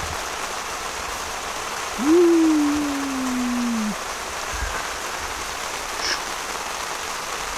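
Steady rain falling. About two seconds in, one long hum-like voice rises briefly, then slides slowly down in pitch over about two seconds.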